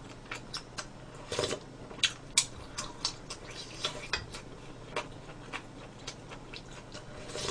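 A metal spoon clinking and tapping against a pot and dishes while broth is scooped out: a string of light, irregular clicks, a few louder ones a second or two in.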